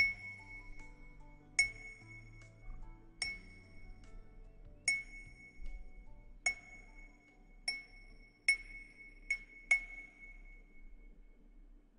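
A small ringing object tapped about nine times, each tap ringing out on the same clear high note; the taps come about every second and a half, then quicker near the end.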